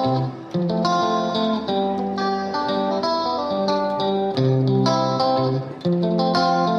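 Background instrumental music: a melody of plucked notes over a steady lower line, playing throughout.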